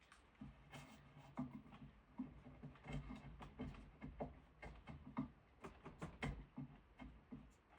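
Quiet, irregular scraping and tapping from hand work on a piece of diamond willow, several short strokes a second, over a faint low steady hum.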